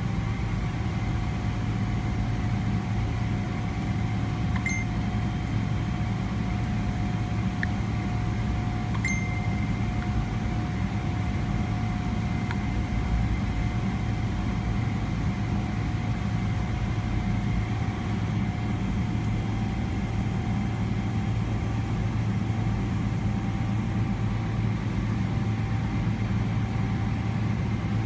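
Steady cabin drone inside a Boeing 777-300ER taxiing, its engines and air conditioning giving a low hum with a steady mid-pitched whine over it. Two faint short high tones come about five seconds in and again about four seconds later.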